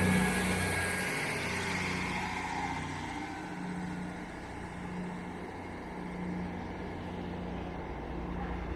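Class 158 diesel multiple unit departing, its engines running with a steady low note that fades over the first few seconds as it draws away, then carries on faintly.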